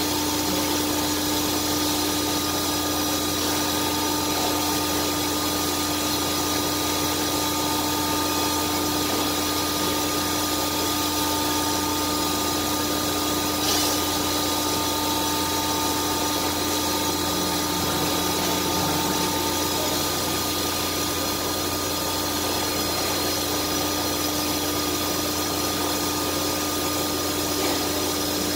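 CNC router running steadily: a constant low hum with several high steady whining tones over a machine hiss, and a single sharp click about 14 seconds in.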